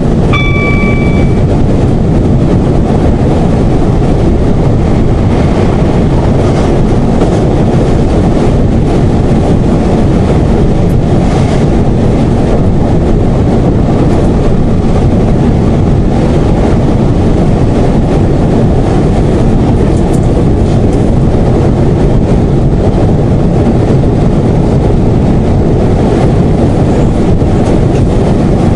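Class 171 Turbostar diesel multiple unit running at speed, heard from inside the driver's cab: steady engine and wheel-on-rail noise. A short chime sounds about half a second in.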